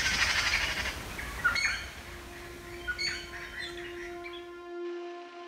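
Birds chirping, thinning out to a few separate calls, while soft music with long held notes fades in beneath them.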